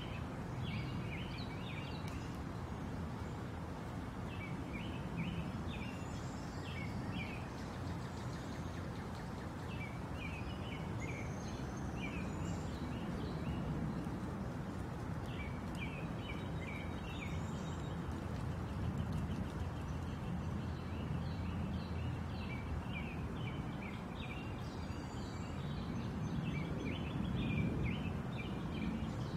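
Steady rushing noise of wind and water, with small birds chirping in short runs every few seconds.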